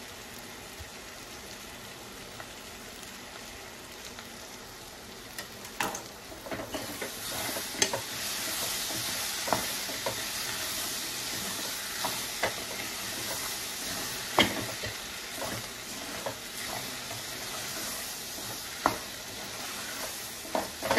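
Onion masala frying in oil in a kadai, sizzling steadily. About six seconds in the sizzle grows louder, and a metal spoon clinks and scrapes against the pan every second or two as the masala is stirred.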